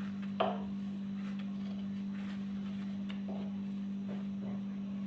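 A steady low hum with a few faint, light knocks, likely from utensils handling the beignets as they are filled with jam.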